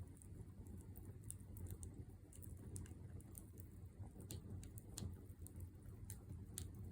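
Wood campfire burning in a fire stand, crackling with irregular small pops and snaps, several a second, over a low steady rumble.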